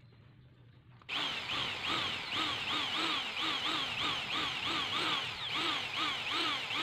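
Corded electric drill with a 1/4-inch metal bit boring a hole through a metal stair-nosing trim strip. It starts about a second in and keeps running under load, its pitch wavering up and down about twice a second as the bit is pressed into the metal.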